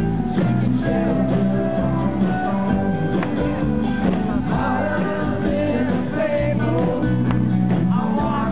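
Live rock band playing a song: electric guitar, bass and drums with a man singing the lead vocal.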